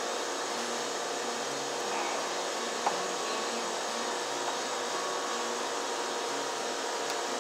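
A steady whooshing hiss, like a fan or blower running, with a few faint clicks as a screwdriver drives a receptacle's mounting screw into a plastic electrical box, the clearest about three seconds in.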